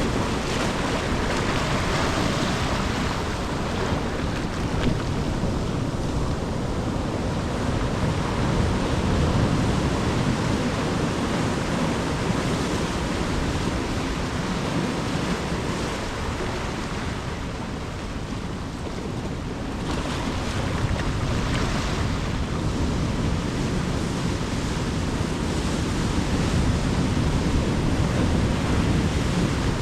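Ocean surf washing onto the shore, a continuous rush that swells and ebbs as waves break, easing off a little past halfway and surging again soon after.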